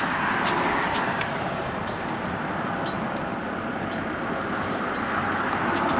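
Steady rushing road noise of passing traffic, swelling near the start and again near the end, with a few faint clicks.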